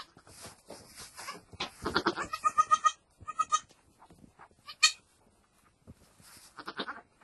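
Goat bleating in short, wavering calls about two to three seconds in, then one short sharp bleat near five seconds.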